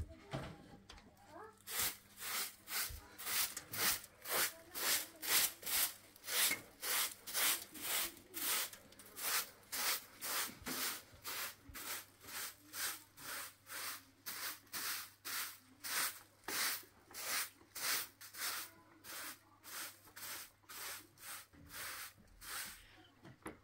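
A short straw hand broom sweeping a floor in quick, even strokes, about two swishes a second, starting about two seconds in.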